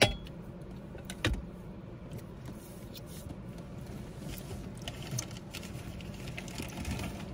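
Close-up handling noise: a sharp knock, another about a second later, then light clicks and rustling as small objects are handled.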